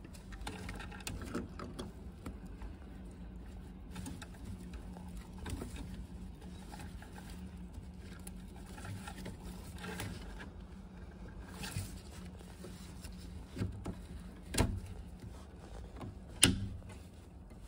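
Faint handling noises of a gloved hand fitting a new automatic air vent into a Vaillant boiler pump, over a steady low hum, with two sharp clicks near the end.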